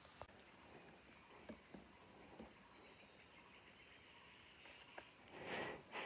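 Quiet forest ambience: a steady high insect drone, with a few faint ticks and one short soft rustle a little after five seconds in.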